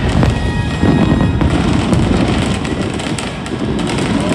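Aerial fireworks going off in rapid succession: dense crackling pops over low booms of shell bursts.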